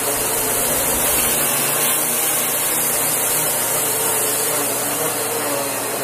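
Miele Dynamic U1 upright vacuum cleaner running steadily, a constant rushing hiss over a low motor hum, as it is pushed across the carpet.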